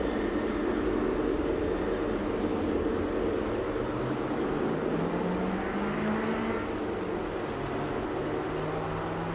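G-scale model diesel locomotives and freight cars rolling along the track, a steady rumble that slowly eases, with a low tone that rises in pitch around the middle and then holds.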